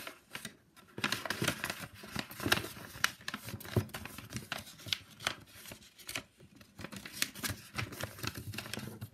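A sheet of paper being folded and creased by hand: irregular rustling and crinkling with sharp little crackles as the folds are pressed flat, broken by brief pauses.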